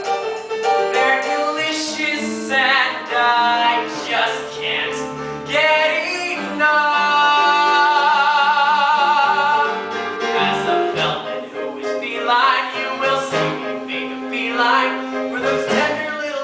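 Singers performing a musical-theatre song with instrumental accompaniment. Near the middle, one voice holds a long note with wide vibrato for about three seconds.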